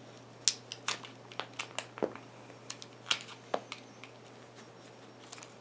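A metal tool picks and scrapes at the hard potting compound inside a plastic LED bulb base, prying it out to free the driver. It makes irregular sharp clicks and crunches, about a dozen in all, as the compound cracks away.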